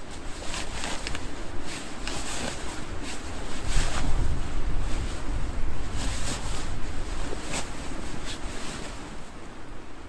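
Wind gusting on the microphone, swelling about three and a half seconds in and easing after about seven seconds, over short bursts of rustling nylon fabric being handled.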